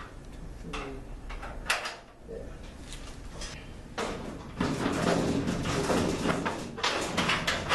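Sheet-metal shelf being handled and fitted into a steel storage cabinet: scattered metal knocks and scrapes, with a sharp clank about 1.7 s in. From about halfway through the clatter and scraping grow louder and busier as the shelf is worked into place.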